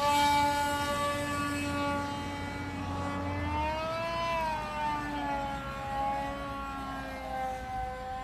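Electric motor of a Freewing Moray clone RC model plane whining steadily in flight, its pitch swelling up and back down about four seconds in.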